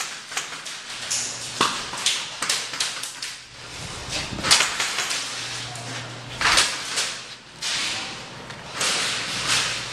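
Irregular sharp cracks of air-powered game guns firing in a skirmish. The loudest come about four and a half and six and a half seconds in.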